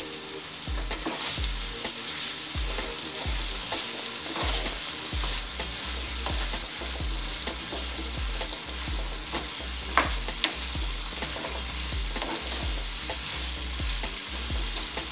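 Chopped capsicum (green bell pepper) sizzling in a frying pan of hot spiced oil while being stirred with a spoon, with repeated scraping strokes through the pieces. A sharp knock sounds about ten seconds in.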